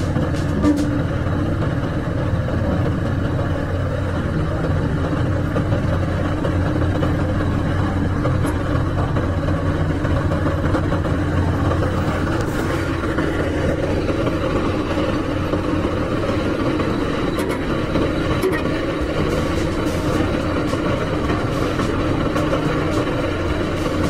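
Diesel engines of a road roller and a JCB 3DX backhoe loader running steadily at low speed, an even low drone.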